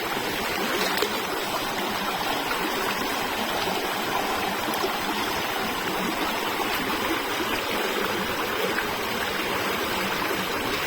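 Steady rush of running water, like a stream or small spillway, holding an even level throughout.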